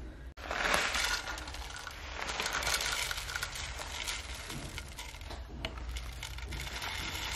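Dry rolled oats being poured into a plastic blender jar: a dense, steady rattle of many small grains hitting the plastic.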